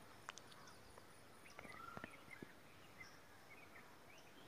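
Near silence: quiet room tone with a few faint bird chirps in the background and a couple of faint clicks.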